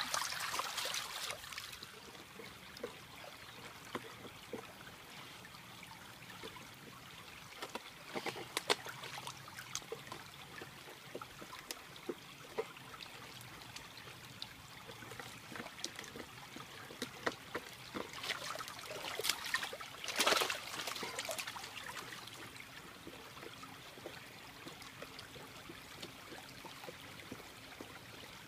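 Shallow rain-fed stream trickling steadily over concrete and rocks, with scattered splashes and knocks as a dog wades and works at a large waterlogged log. There is a brief louder burst of splashing at the start, another about eight seconds in, and the loudest about twenty seconds in.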